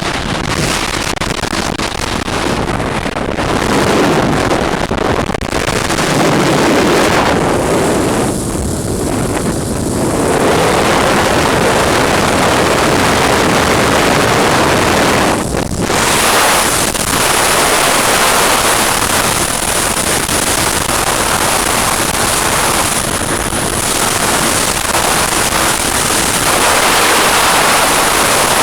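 Wind buffeting the microphone on a moving boat: a loud, steady rush of noise that covers everything else, easing briefly a couple of times.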